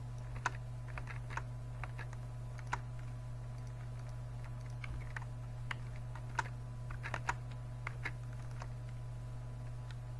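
Computer keyboard keystrokes: short, irregularly spaced clicks, a few close together around the middle and later on, over a steady low hum.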